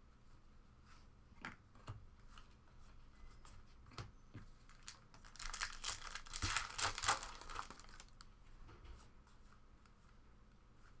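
A trading-card pack wrapper crinkling and being torn open, with a loud stretch of ripping and crinkling from about five to eight seconds in, and light scattered clicks and rustles either side.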